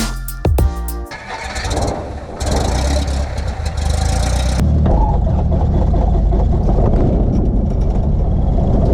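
A Cessna light aircraft's piston engine being started: a few seconds of stuttering cranking, then the engine catches a little over halfway through and settles into a steady, loud idle.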